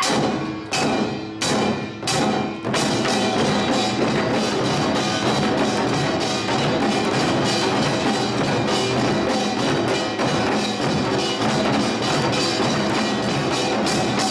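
Samul nori percussion ensemble playing: the kkwaenggwari and jing gongs ring against the janggu and buk drums. About five separate strokes come roughly half a second apart at first, then about three seconds in the playing turns fast and continuous.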